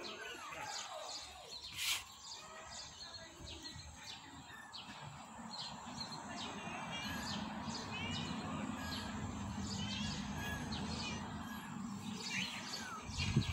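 Small birds chirping in short, repeated calls, over a low steady hum that comes in about midway. A single sharp click about two seconds in.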